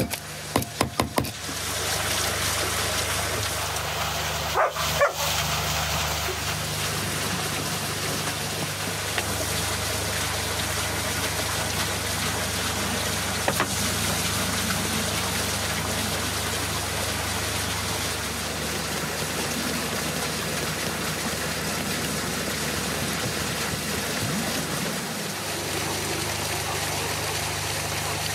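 A wooden pestle pounding a paste in a wooden mortar, a few quick knocks right at the start, then a steady outdoor noise, with a short dog bark about five seconds in.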